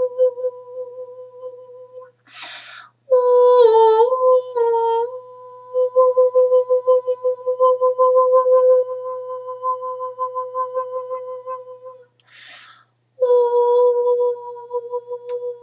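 A woman toning, humming long held notes at one steady pitch. She breaks twice for a short in-breath, and the note wavers briefly after the first breath.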